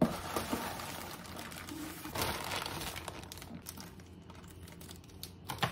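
Plastic packaging crinkling and cardboard box flaps rustling as a box of cabinet handles is unpacked, louder about two seconds in, then fading, with a sharp click near the end.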